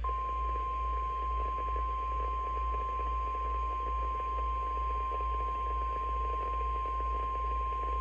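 NOAA Weather Radio warning alarm tone, a single steady 1050 Hz tone from a Midland weather radio's speaker, sent as part of the Required Weekly Test of the public warning system. The tone holds without a break, over a low hum.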